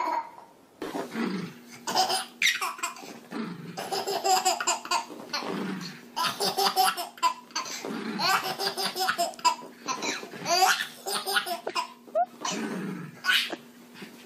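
A baby laughing hard in repeated bursts of giggles and belly laughs, each bout a few quick breathy peals.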